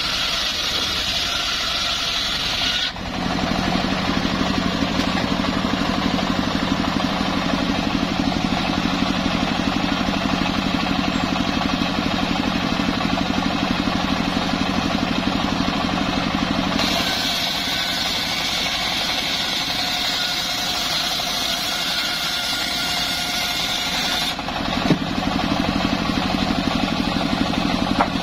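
Homemade engine-driven circular sawmill running steadily. Twice the big blade rips through mahogany, adding a high whine and hiss, at the start and again from about the middle until a few seconds before the end. In between, the engine's low hum is on its own. A sharp knock comes near the end.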